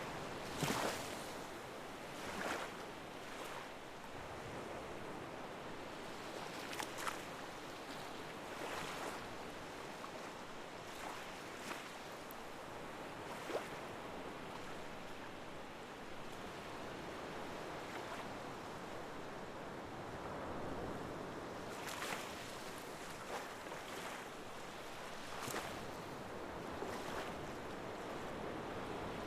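Sea water washing steadily, with short irregular splashes of waves breaking every few seconds.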